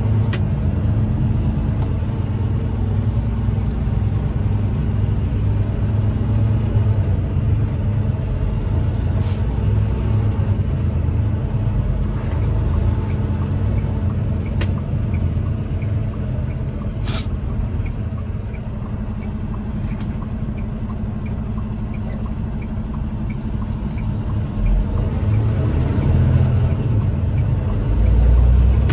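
Semi truck's diesel engine running at low speed, heard inside the cab as a steady low rumble, swelling near the end as the truck pulls away. A few sharp clicks and a faint regular ticking in the middle.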